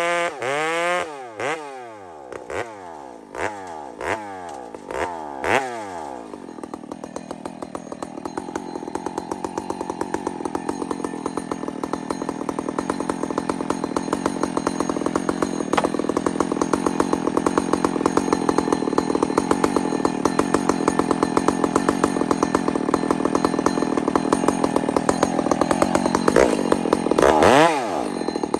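Husqvarna 266 two-stroke chainsaw coming off full throttle as a cut finishes, winding down, then blipped about seven times before settling into a steady ticking idle that slowly gets louder. Near the end it is revved up briefly, twice, as a new cut begins.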